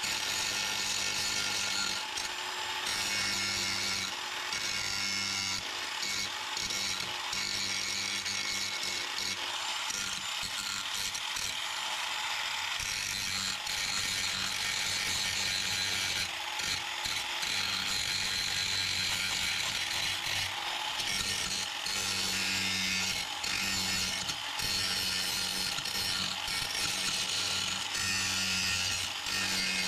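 Angle grinder with an abrasive disc grinding down fresh tack welds on a steel car firewall, a steady rasping grind over the motor's hum. This is the welded crack being ground smooth.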